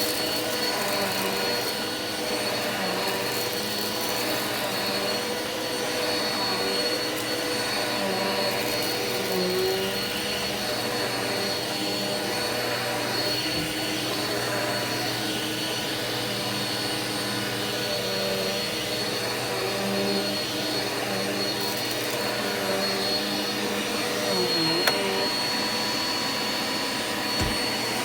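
Canister vacuum cleaner running steadily while vacuuming carpet, a constant motor rush with a high whine.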